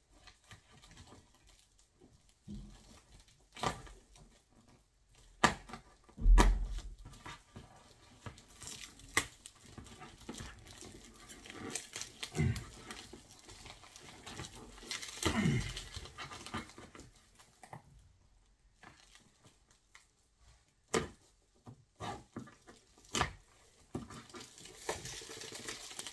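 Hacking and tearing at heavily taped plastic and cardboard packaging with a blunt knife, with scattered knocks, crinkling and a heavy thump about six seconds in. Two short strained groans of effort fall in pitch about halfway through.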